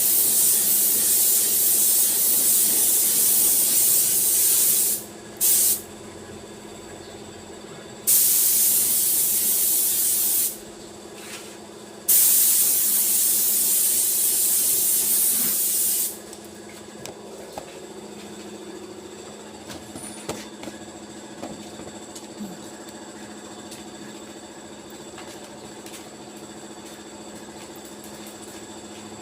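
Compressed air spraying in long hissing bursts, four of them, the last stopping about halfway through. After that only a steady low hum with a few light clicks remains.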